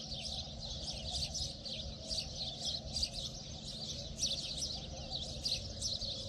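Many small birds chirping continuously, with rapid high calls overlapping one another, over a steady low hum.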